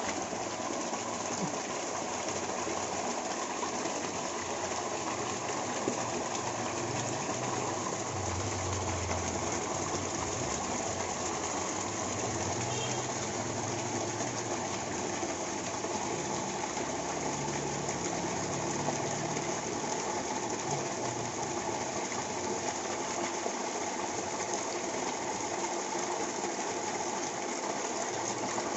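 Sunsun CEF 26000 L/h submersible pond pump running at full flow, a thick jet of water gushing from its 3-inch elbow outlet and splashing steadily into the pond.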